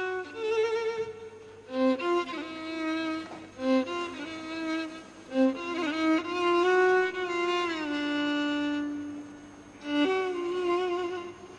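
Background score: a violin plays a slow melody of held notes with vibrato, sliding between some of them, over a few shorter lower notes.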